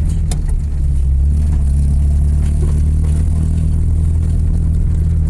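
Motor vehicle engine running with a steady low hum that rises a little about a second in, heard while riding along a rural road.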